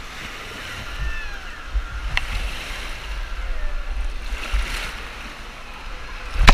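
Wave-pool water sloshing and splashing against a GoPro held at the surface, with low rumbling thumps as the waves hit the camera housing. There is one sharp knock near the end.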